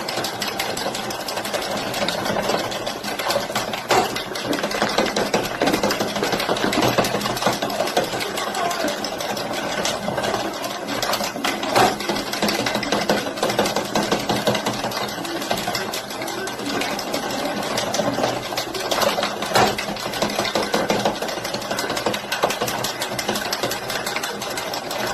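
Hand-cranked circular knitting machine running, its needles clattering in a rapid, steady stream of clicks as the cam ring goes round, with a few louder clacks along the way.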